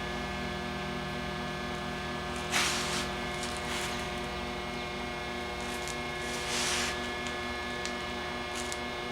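Steady electrical hum, typical of an idling stick welder's transformer, with two short hissing sounds, one about two and a half seconds in and one near the middle, and a few faint ticks near the end.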